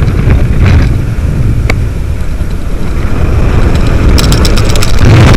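Loud, low rumbling noise of wind buffeting the microphone, with a rapid rattle of clicks about four seconds in.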